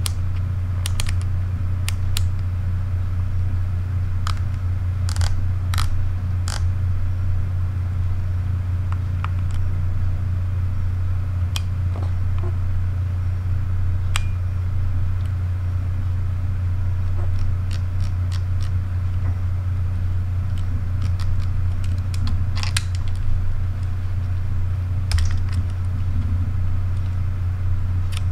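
Camera top-plate dials on a Sony RX1R II, then a Fujifilm X-T30, clicking through their detents as they are turned by hand, in irregular sharp clicks with some handling knocks. A steady low hum runs underneath and is the loudest sound.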